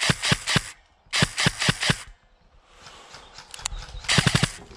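G&G PCC9 airsoft electric gun firing: a quick string of shots, a second string about a second later, then a short fast burst about four seconds in.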